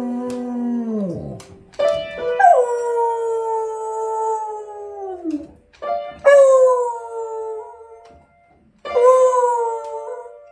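A beagle howling at an upright piano while pressing its keys: a series of long drawn-out howls, each sliding down in pitch at the end, with piano notes struck under them as its paws hit the keys.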